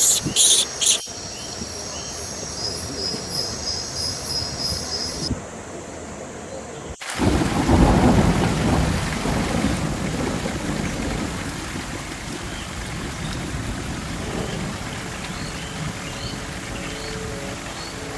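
Rainforest ambience: insects chirping in short pulses over a steady hiss, then, after an abrupt cut about seven seconds in, a low rumble of thunder over heavy rain that settles into steady rainfall.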